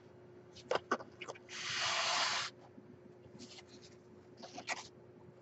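Handling noises at a desk: a few light clicks and taps, then a rushing hiss about a second long around two seconds in, then more faint taps.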